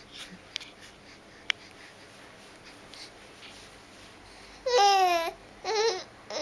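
Baby making babbling vocal noises: two high-pitched, drawn-out voiced sounds near the end, a longer one and then a shorter one, after a few seconds of quiet with faint clicks.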